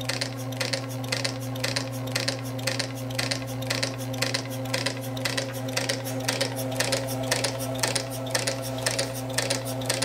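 Homemade camstopper hit-and-miss model engine being turned over by a belt-driven electric motor, unlatched so the cam keeps turning: a steady electric motor hum under regular clicking from the cam and valve gear, about three clicks a second.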